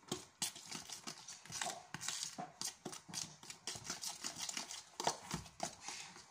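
A spoon or fork stirring a flour batter in a bowl, making irregular quick clicks and taps several times a second as it knocks and scrapes against the bowl's sides.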